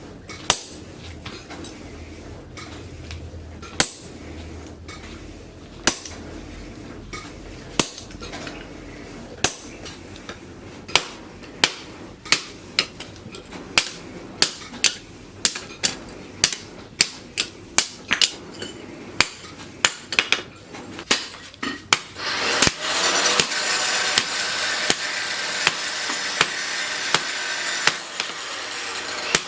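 Hammer blows on steel on an anvil, at first slow and about two seconds apart, then quickening to more than one a second. Near the end a loud steady rushing noise sets in beneath the blows.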